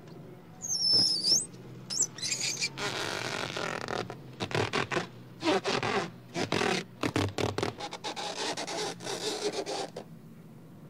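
Chalk squeaking on a blackboard in short high screeches during the first two seconds. Then a hand rubs over a rubber balloon, squeaking in quick repeated strokes until about ten seconds in.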